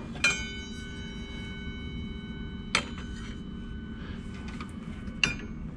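A steel dado chipper clinks against metal as it is lifted off the table saw arbor, and rings with a clear high metallic tone for about two and a half seconds until a second touch cuts it off. Another light clink comes near the end.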